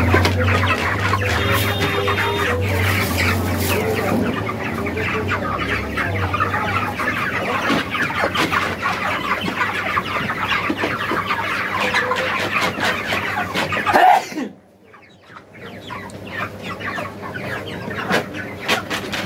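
A flock of broiler chickens clucking and peeping all together, with a low hum under the first few seconds. The sound drops away suddenly for a moment about two-thirds of the way through, then the clucking resumes.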